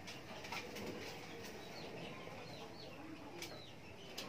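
Pigeons cooing softly, with a few short higher chirps and light clicks.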